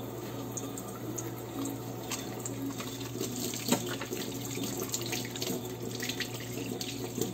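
Kitchen faucet running steadily through a spray head into a stainless steel sink while hands are rubbed and rinsed under the stream. One brief knock about halfway through.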